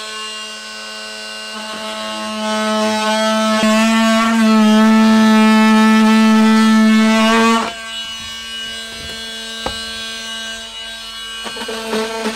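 Handheld power saw cutting the vent opening through a plywood wall: a steady motor whine, loudest for the first seven or so seconds, then dropping to a quieter run with a few knocks near the end.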